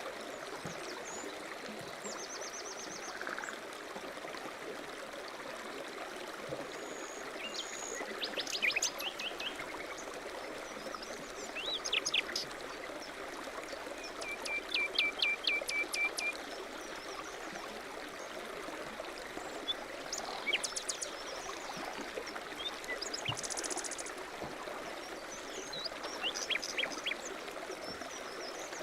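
A stream flowing steadily, with songbirds chirping now and then over it, including a quick trill of short repeated notes about halfway through.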